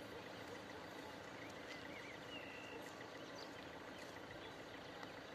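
Faint outdoor ambience with a few scattered bird chirps.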